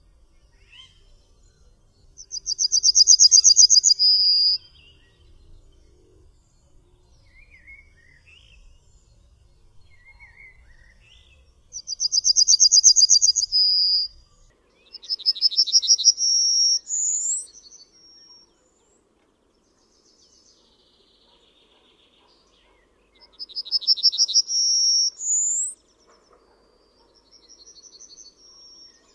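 Yellowhammer (Emberiza citrinella) singing: four song phrases, each a fast run of repeated high notes, the last two ending in a higher note that slides upward. Faint short chirps come between the phrases.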